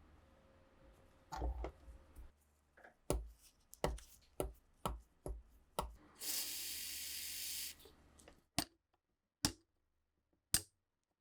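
Hand work on a bench: a run of about ten sharp taps and knocks, then a steady hiss lasting about a second and a half, then three more separate clicks.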